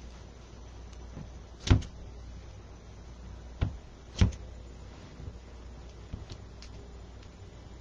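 Sharp knocks as a wreath is worked by hand on a craft table: one about two seconds in and two more close together around four seconds, then a few light clicks. A steady low hum runs underneath.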